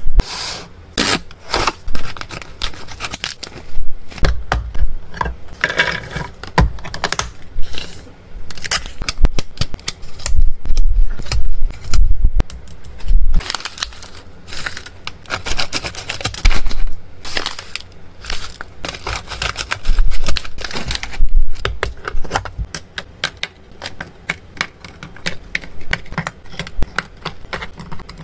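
Close-up rustling and clicking of pet-treat packaging: a plastic storage box of dry treats being handled and a resealable pouch of freeze-dried treats being crinkled. Dense runs of sharp clicks and rustles come in bursts with short pauses between.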